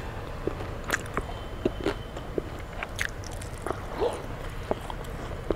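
Close-miked chewing and mouth sounds of a person eating fried fish and panta bhat (watery rice) by hand, with irregular short, sharp clicks.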